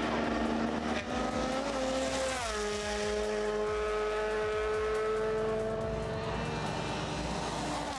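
Toyota Yaris Rally1 rally car's engine running hard on a snowy stage. Its note drops sharply as the car passes, about two and a half seconds in, then holds steady as the car goes away.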